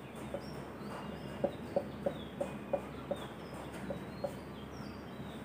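A hen clucking in a run of short, evenly spaced clucks, about three a second, through the middle of the stretch, with small birds chirping faintly.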